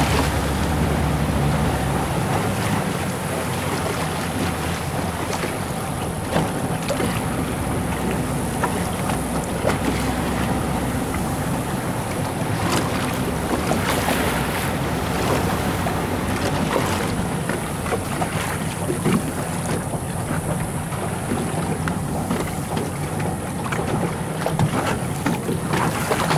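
Motorboat engine running steadily under gusty wind noise on the microphone, with water rushing past the hull.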